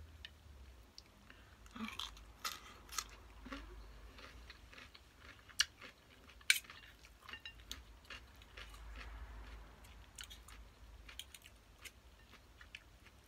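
A person chewing glass noodle salad close to the microphone, with irregular crisp crunches and mouth clicks. The two sharpest crunches come about five and a half and six and a half seconds in.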